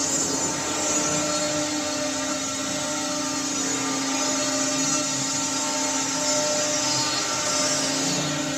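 CNC router running steadily, a constant whine with a hiss of cutting over it.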